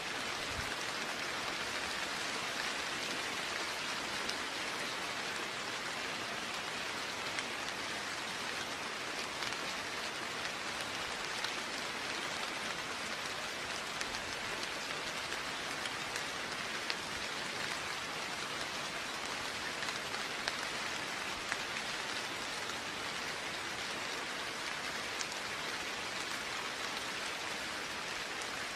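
Steady rain falling, an even hiss with scattered small drop ticks, no thunder.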